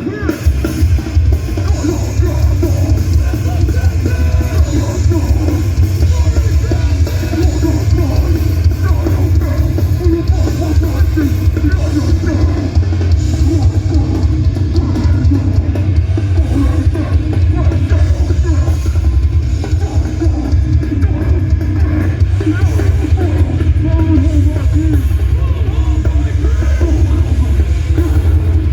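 Hardcore/metalcore band playing live at full volume: pounding drums, heavy distorted guitars and bass, recorded from inside the crowd on a phone held overhead.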